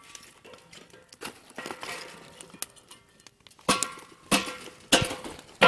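Scrap wood scraping and knocking against a metal washing machine tub as a piece is forced in; four sharp knocks in the last two seconds, each leaving the metal ringing.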